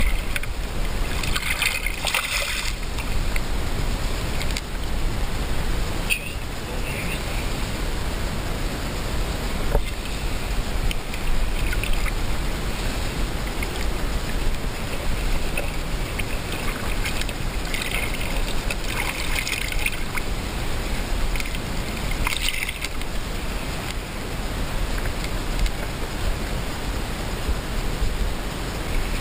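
Shallow river water running and sloshing around a wader's legs, with a steady low rumble underneath and a few brief splashes near the start and again around the middle.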